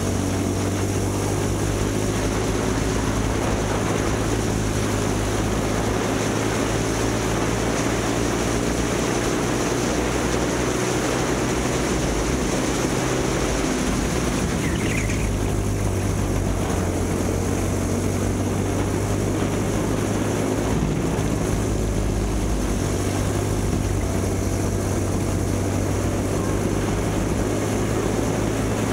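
A kid kart's small engine running steadily, its pitch drifting slowly up and down.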